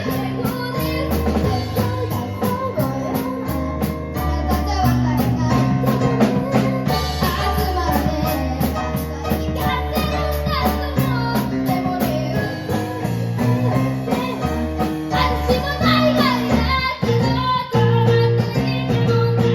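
Kids' band performing live: a child singing over a drum kit and keyboard, with a steady drum beat.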